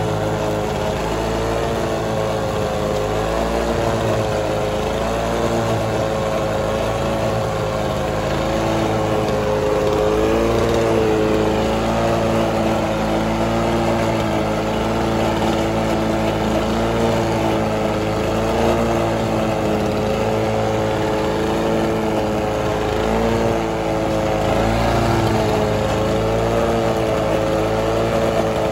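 Lawn Boy 22260 commercial mower's 6.5 hp two-stroke Duraforce engine running steadily, warm, its pitch wavering slightly up and down.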